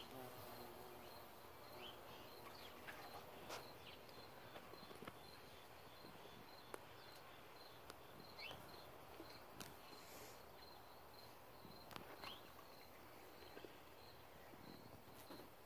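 Near silence outdoors: a faint insect chirping steadily at about three pulses a second, with a few faint short chirps and small clicks. No bee buzzing stands out.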